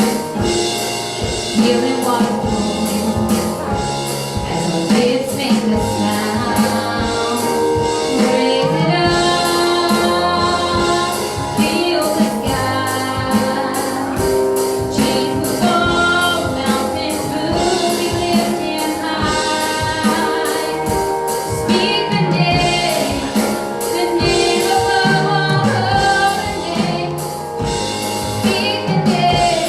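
Live worship music: a band with a steady drum beat and singers performing a praise song.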